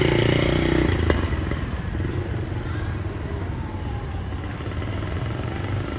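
Low, steady rumble of a running motor vehicle engine, louder for the first second, with a single sharp click about a second in.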